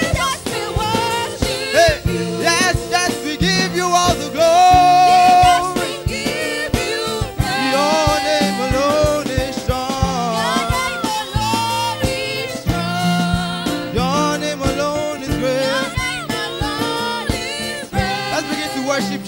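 Live gospel worship song: voices singing a melody over a band, with steady bass notes and a regular drum beat.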